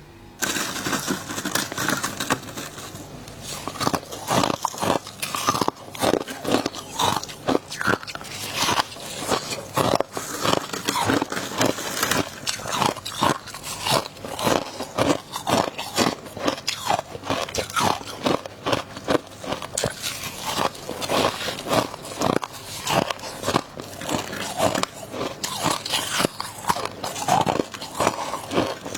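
Flaky freezer frost crunching, in loud irregular crunches about three every two seconds with fine crackling between them.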